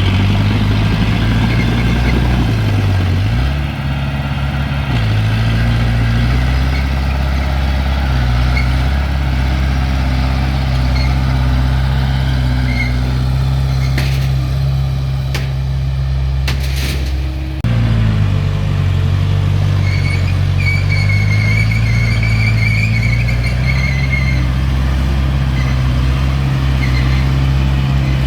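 Diesel engine of heavy earth-moving equipment running steadily, its pitch dipping and recovering as it takes load. A few sharp clicks come past the middle, the sound changes abruptly about two thirds through, and a high squeal follows for a few seconds.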